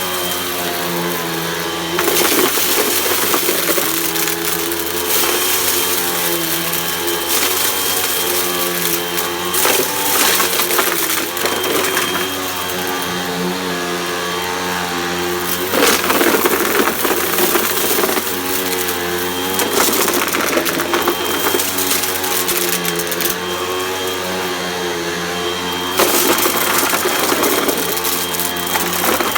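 Hoover vacuum cleaner running steadily, with a thin high whine and a low wavering hum whose pitch shifts every couple of seconds.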